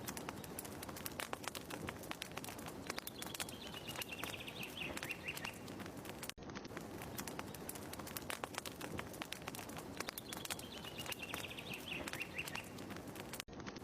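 Fireplace fire crackling with dense, irregular pops, from a loop that repeats about every seven seconds. A short falling series of bird-like chirps sounds twice over it.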